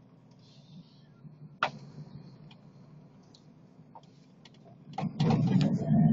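Phone handling noise inside a moving car: small clicks and a sharp knock about a second and a half in as the phone rubs against the dashboard, then louder scraping and rustling in the last second as it is lifted, over a faint steady cabin hum.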